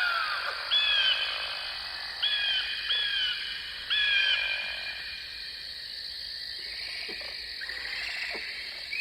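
Spooky sound-effect ambience: five short, arched, high animal-like calls in the first half over a steady hiss, then a few faint clicks near the end.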